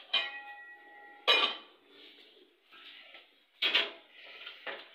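Large aluminium cooking pots clanking as they are handled and set down: a clang at the start that rings for about a second, then three more metal knocks.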